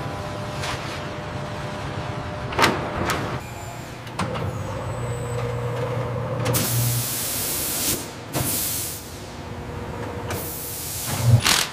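Coach assembly-line sounds: a couple of sharp metallic clicks, a low hum, and three abrupt bursts of compressed-air hiss in the second half.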